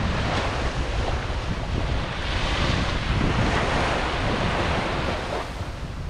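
Ocean surf: waves washing onto the shore as a continuous rushing noise with a low rumble, swelling in the middle and easing near the end.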